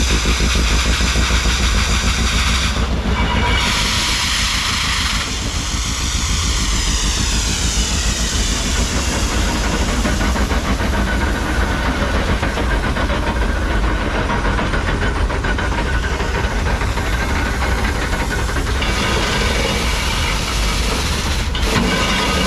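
An engine running steadily with a fast, even beat, under a loud hiss.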